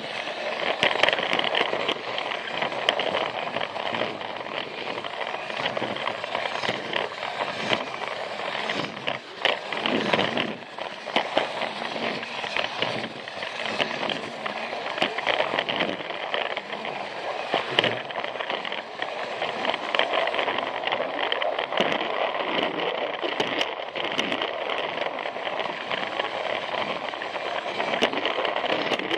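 Plarail toy train running on plastic track: battery motor and gears whirring steadily, with a dense stream of clicks and rattles from the wheels over the track. Heard up close from a camera riding on the train.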